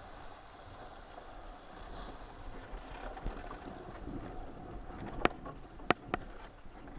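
Water rushing and wind noise around an RS600 dinghy sailing slowly, with three sharp knocks near the end.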